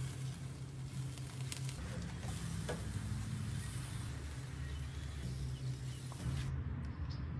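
Steaks sizzling on a hot grill grate, with a few sharp clicks of a metal spatula against the grates as they are lifted, over a steady low hum.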